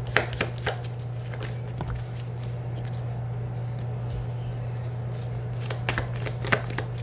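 A deck of tarot cards being shuffled by hand, with quick papery card clicks in the first second and again in the last second or so, sparser in between. A steady low hum runs underneath.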